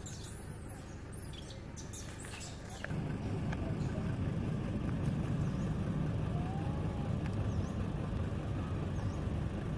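Crackling and rustling of dry leaf litter for about the first three seconds. Then, after a cut, a steady low rumble with a few faint, short high bird chirps over it.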